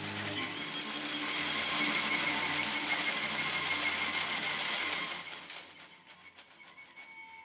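Hundreds of metal safety pins hung on a cello's strings and body, rattling and jangling in a dense metallic buzz as the cello is played, with a faint held tone underneath. The rattle dies away about five seconds in.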